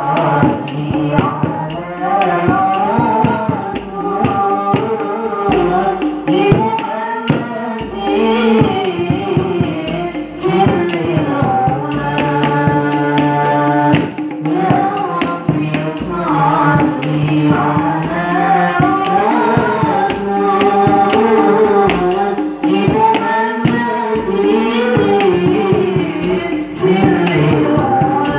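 Sholawat devotional song: a melodic voice sung into a microphone over hadroh percussion, with kendang hand drums, rebana frame drums and jingling kecer cymbals keeping a steady beat. Several long held notes in the melody.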